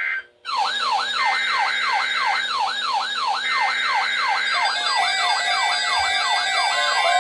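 Electronic emergency-alert siren tones: a fast wailing tone sweeping up and down about two and a half times a second, with steady beeping tones switching on and off over it. More tones layer in from about halfway through.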